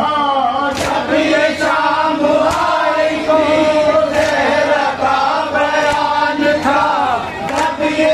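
Men chanting a noha (Shia Muharram lament) in unison through a microphone and loudspeaker, led by a reciter, with sharp rhythmic hand strikes of matam (chest-beating) keeping time at roughly one a second.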